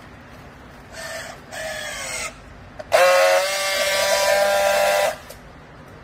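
Battery-powered handheld strapping tool on plastic strap: two short motor whines that fall in pitch as it tensions the strap, a click, then a loud steady buzz for about two seconds as it friction-welds the strap seal, cutting off suddenly.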